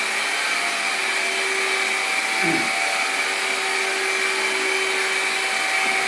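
Hoover Linx cordless stick vacuum running steadily, a constant motor whine with a high tone, as it is pushed across a rug.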